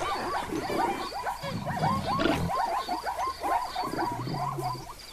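Savanna wildlife ambience: a steady chatter of quick chirping calls with faint high ticks. Deep animal grunts come in twice, about a second and a half in and again near four seconds.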